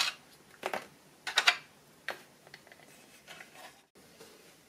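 A few light plastic clicks and taps as a 1:18 scale Power Team Elite toy Humvee is handled, two of them close together about a second and a half in, then fainter taps.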